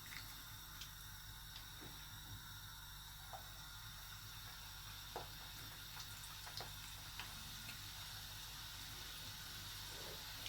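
Hot oil faintly sizzling as the second batch of chicken pakoras goes in to deep-fry, with a few light clicks scattered through.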